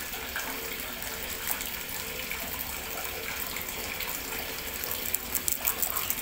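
Steady hiss, with a cluster of sharp crinkles near the end as a small vanilla powder sachet is torn open and shaken out over the flour.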